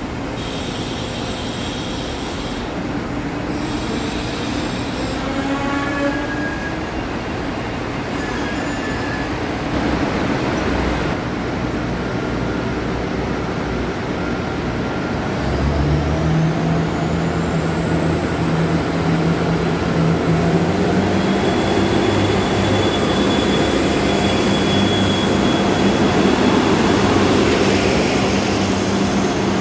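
Korail RDC Mugunghwa diesel railcar train pulling in with brakes and wheels squealing. About halfway through, its diesel engines throttle up and it pulls away, the engine note stepping up in pitch as it gathers speed.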